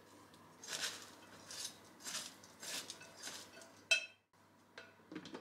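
Metal tongs tossing shredded cabbage and carrot coleslaw in a glass bowl: a run of soft rustling strokes about every half second, then a sharp clink of the tongs against the glass about four seconds in.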